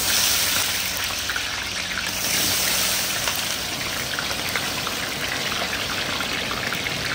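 Sliced onions frying in very hot ghee: a loud, steady sizzle with fine crackling.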